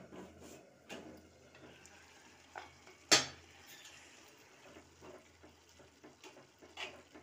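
A spoon stirring noodles and vegetables in a cooking pan, clinking against the pan now and then. There is one sharp clink about three seconds in.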